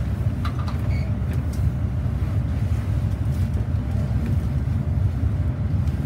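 A steady low rumble with a few faint clicks between about half a second and a second in.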